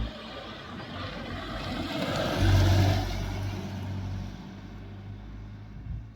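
A motor vehicle on the road, growing louder to a peak about two and a half seconds in and then fading, like a vehicle passing by.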